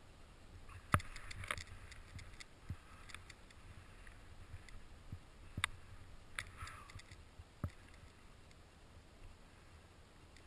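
Faint, muffled sound of skis turning through powder snow: two short swishing hisses, about a second in and again past six seconds, with a few sharp knocks from ski and pole jolts, one at a pole plant in the middle.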